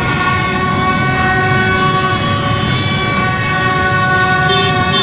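Many horns blaring together in a steady, continuous sustained chord over a dense rumble of street traffic.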